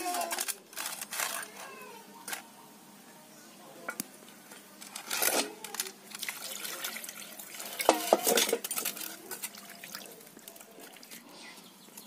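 Water poured from a pot and splashing into a stainless steel bowl of small fish as they are rinsed, in a few short bursts, with handling of the steel bowl.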